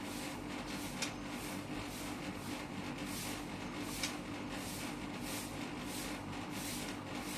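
A murai songbird bathing, flicking and splashing water in its bath dish in quick repeated swishes, about two a second, with a couple of sharp clicks.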